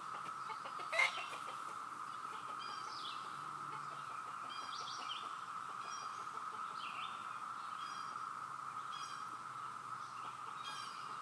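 Chorus of cicadas giving a steady, even drone, with baby chicks peeping in short chirps over it every second or two. A sharp click about a second in.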